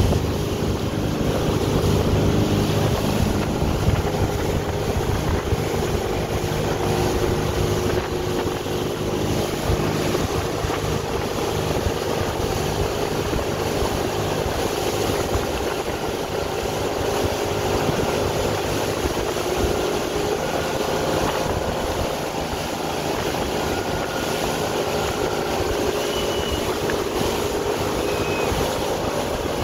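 Motorboat engine running steadily at speed while towing, mixed with the rush of the boat's wake and wind buffeting the microphone.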